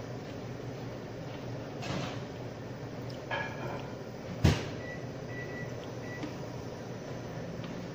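Kitchen handling sounds as liquid custard mixture is strained through a stainless-steel sieve into a metal pan: a soft rustle about two seconds in, a few light metallic clinks, then one sharp knock a little past halfway.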